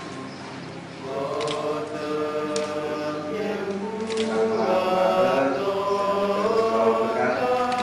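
A choir singing a slow hymn with long held notes.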